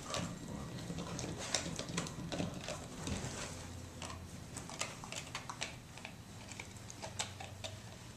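A dog making a low, drawn-out noise, with irregular clicking and tapping throughout.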